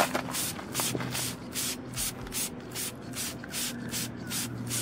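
Hand trigger spray bottle of wheel cleaner being pumped over and over, a short hiss with each squeeze at about three sprays a second.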